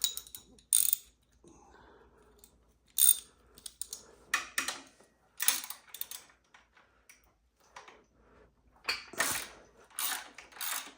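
Ratchet wrench clicking in short bursts as it turns a bolt, with a quicker run of strokes near the end.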